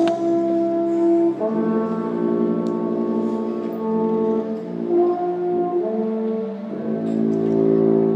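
Wind ensemble playing held, sustained chords that change about a second and a half in and again near the end.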